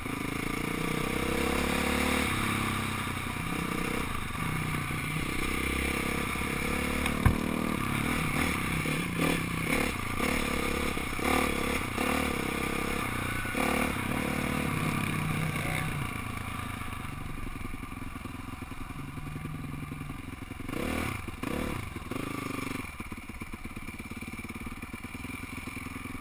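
Honda CRF450R dirt bike's single-cylinder four-stroke engine heard from a helmet-mounted camera, revving up and down through the gears with wind rushing over the microphone and a sharp knock about seven seconds in. It quietens over the last ten seconds as the bike slows to a stop.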